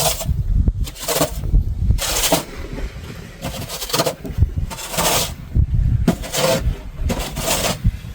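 Snow shovel scraping and pushing through snow in short strokes, about one a second.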